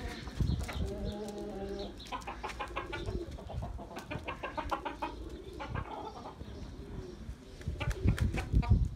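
Hens and roosters clucking and calling, with one drawn-out call about a second in and scattered sharp clicks throughout.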